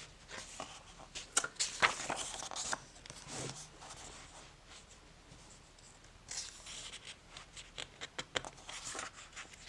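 Paper guidebook being handled and its pages turned: short rustles and light taps in two bouts, the first from about half a second to three seconds in, the second from about six seconds in until near the end.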